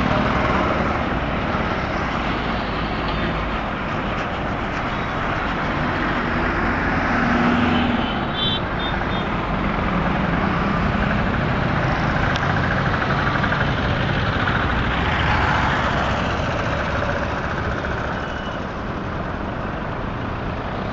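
Street traffic with three-wheeled auto-rickshaws and small goods carriers passing close by, their engines running steadily. A few short high beeps come about eight seconds in.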